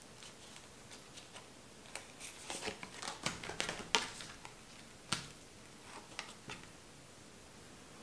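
Playing cards being handled and a card drawn from a fanned deck: a cluster of small clicks and rustles about two seconds in, the loudest near the middle, then a few softer ones later.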